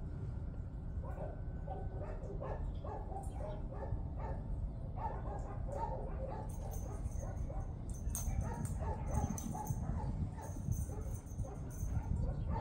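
Dogs barking and yipping in a kennel, many short overlapping calls without a break, over a low steady rumble.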